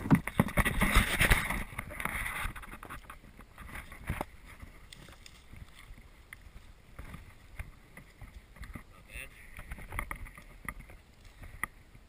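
Dry brush and grass rustling and scraping as a person pushes through scrub, loudest in the first two seconds, then quieter with scattered sharp snaps of twigs.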